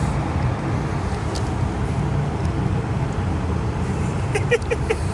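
Steady low outdoor rumble, with four short chirping sounds in quick succession about four and a half seconds in.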